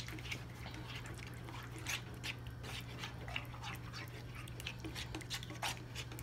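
A spoon stirring thick tomato sauce with tomato paste in a pan: a run of short, irregular wet squelches and scrapes over a steady low hum.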